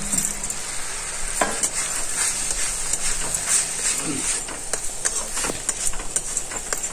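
Metal spatula stirring leftover cooked rice into a sizzling tomato-onion masala in a kadai. A steady frying sizzle runs under frequent scrapes and taps of the spatula against the pan.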